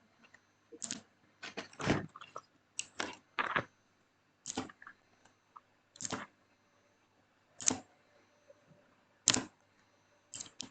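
Outemu Blue clicky mechanical keyboard switch being pressed key by key, each press a sharp click. There is a quick run of presses in the first few seconds, then single presses about a second and a half apart.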